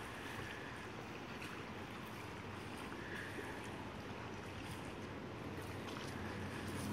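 Steady rush of wind and surf, with no distinct wave breaks.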